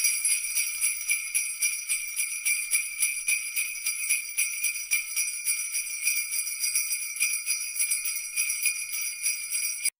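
Sleigh bells shaken in a steady, rapid rhythm, cutting off abruptly near the end.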